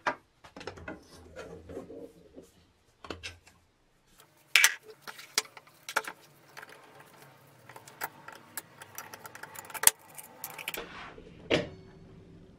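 Metal parts of a vintage desk lamp being taken apart by hand: irregular clicks, knocks and clinks of the steel base, stem and gooseneck as they are worked loose and lifted off the base plate, the loudest knocks about four and a half seconds in and near ten seconds.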